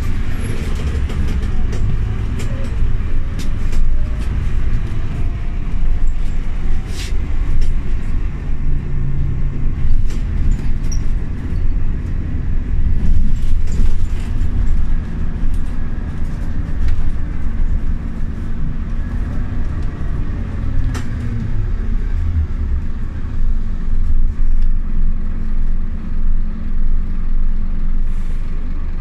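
Scania OmniLink city bus heard from inside the passenger cabin as it drives: a steady low engine and drivetrain rumble, with a faint whine that rises and falls. Scattered clicks and rattles come from the interior.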